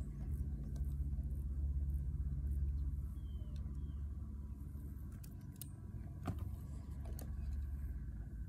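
Low, steady rumble of wind buffeting the phone's microphone, with a couple of sharp handling clicks from the rod and reel in the second half.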